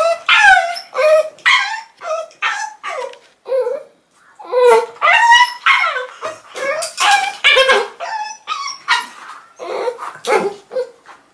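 Mixed-breed puppies yipping and whimpering in short, high-pitched cries, two or three a second, with a brief pause about four seconds in, as they play-fight with their mother.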